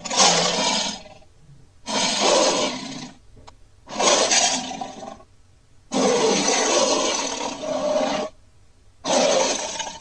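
Custom monster sound effect of a Terror Dog: five rough roars, each about a second long except the fourth, which lasts about two seconds, with short pauses between them.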